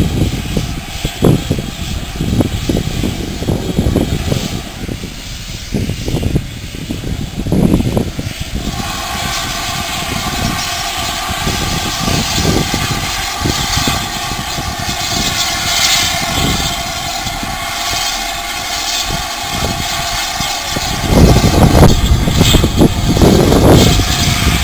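ROD 2-8-0 steam locomotive No. 5322 working slowly past with uneven low rumbling and thumps. From about nine seconds in, a steady whining tone with many overtones joins it and holds, and the low rumble swells near the end.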